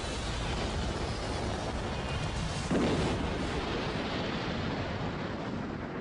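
Dramatised crash of a jetliner into swamp water: a steady rushing noise, then a heavy explosive impact about three seconds in that dies away slowly.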